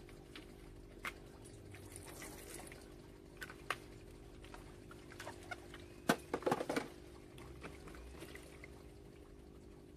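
Vitamin B1 solution being poured from a plastic bottle into a plastic tub of water, then a hand swishing the water, over a faint steady hum. A quick cluster of plastic knocks and splashes about six seconds in is the loudest part.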